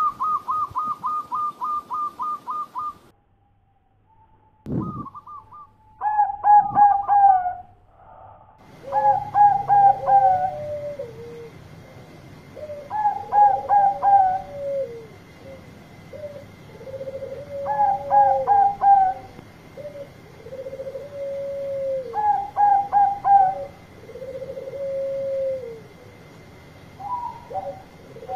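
Bangkok-strain zebra dove (perkutut) cooing. It opens with a fast run of about a dozen short notes, then a pause and a single click. After that it repeats phrases of a few quick staccato notes ending in a longer, falling coo, about every four seconds.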